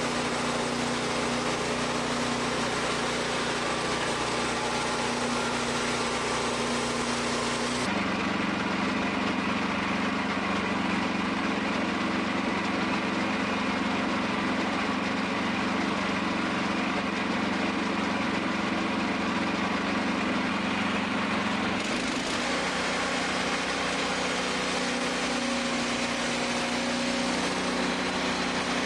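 Wood-Mizer band sawmill's engine running steadily. About eight seconds in the sound turns abruptly deeper with less hiss, and near the end of the middle stretch it switches back just as suddenly.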